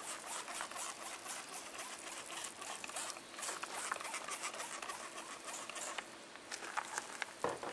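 Simple Green cleaner being applied by hand to a mud-stained boat hull: a quick run of short, irregular hissing strokes, with a single knock near the end.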